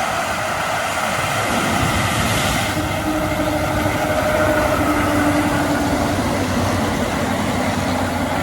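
John Deere X9 1000 combine running steadily as it harvests corn, a continuous loud machinery drone with a few steady tones through it.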